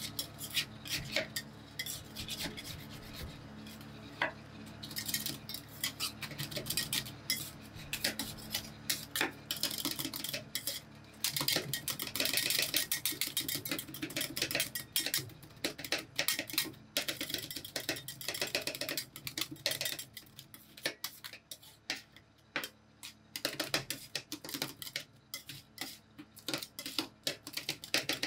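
Metal spatulas clattering rapidly against a steel cold plate as rolled ice cream is chopped and worked, with a stretch of continuous scraping about midway.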